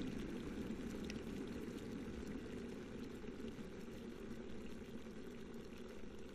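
Electric water boiler with water at a rolling boil, a low bubbling rumble that slowly dies down.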